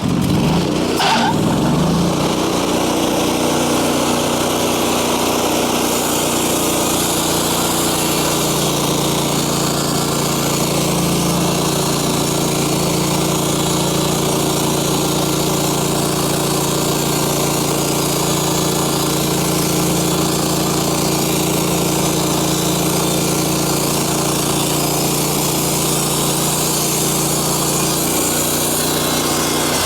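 A sawmill's engine throttles up at the start and then runs steadily at speed as the blade cuts through a log. Its note shifts about eight seconds in and again near the end.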